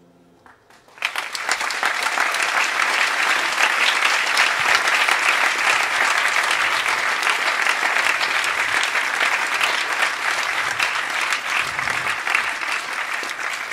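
A held chord dies away, then about a second in a concert audience breaks into loud applause that carries on steadily and thins slightly near the end.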